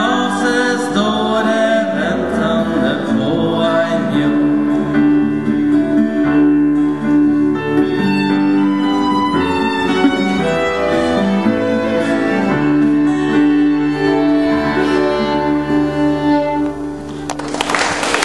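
Violin playing the melody over strummed acoustic guitar and keyboard, the closing bars of a song; the music stops a little before the end and applause breaks out.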